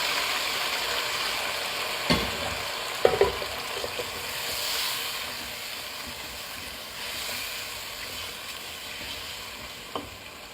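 Boiled goat meat sizzling in hot oil with browned onions, garlic and ginger in a cooking pot, the sizzle dying down gradually. A few short knocks sound about two and three seconds in and again near the end.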